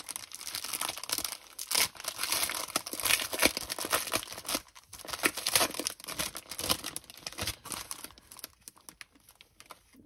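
Plastic packaging crinkling and tearing as it is handled and pulled open by hand, in irregular crackles that die down over the last couple of seconds.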